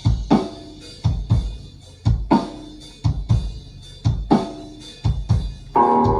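Drum kit playing a break on its own: a pair of kick and snare hits about once a second, with rimshots and hi-hat. The full band with guitar comes back in near the end.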